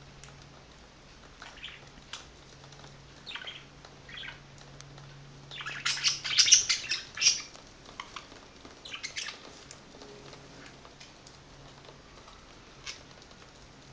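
Pet budgerigars chirping in short, scattered calls, building to a loud flurry of chirps about six seconds in, then a smaller burst a few seconds later.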